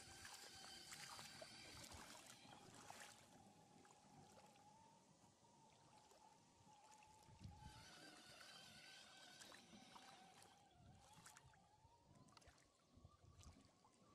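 Faint whine of a 1/10-scale RC crawler's electric motor, wavering slightly in pitch, as the truck wades through deep water, with faint trickling and splashing.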